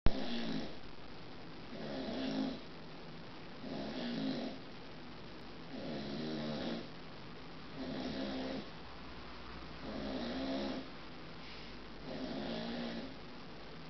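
A seven-month-old American Bulldog puppy snoring in her sleep: a snore about every two seconds, each lasting just under a second, with quiet breaths in between.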